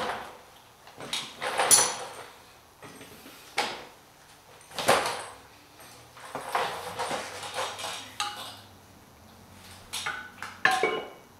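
Metal clanks and clinks as a steel flywheel is handled and set against the engine's adapter plate and crankshaft: several separate knocks spread through, with a couple of brief ringing clanks near the end.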